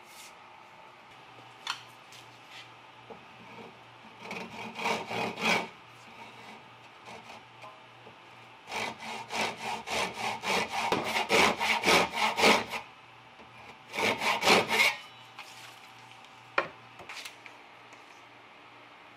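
Hand saw cutting across the end of a wooden baseball bat's handle, in three runs of quick back-and-forth strokes at about three to four a second. The middle run is the longest, about four seconds. A couple of single light knocks come before and after.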